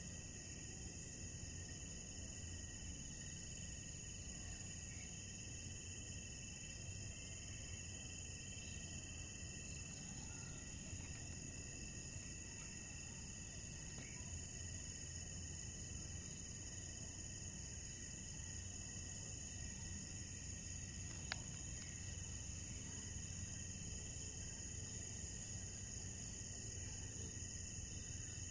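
Crickets in a night chorus, a steady high-pitched trill at several pitches, over a faint low rumble. One short click about 21 seconds in.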